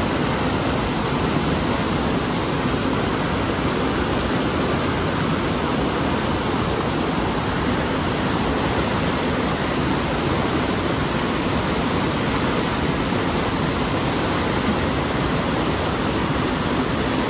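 Mountain river rapids: white water rushing steadily over and around boulders, a dense, unbroken noise.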